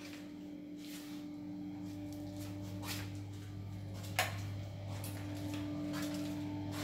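Footsteps on a tiled floor, soft and roughly once a second, over a steady low hum, with one sharp click about four seconds in.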